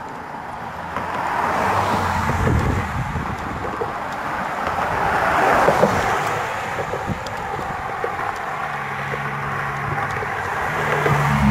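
Cars passing on a two-lane road, heard from a moving bicycle over wind rushing across the microphone. The traffic noise swells twice, and a low, steady engine hum comes in during the last few seconds.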